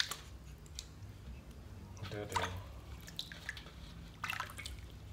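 Water splashing and dripping in a stainless steel basin as hands wash a baby monkey in shallow water, in several short splashes.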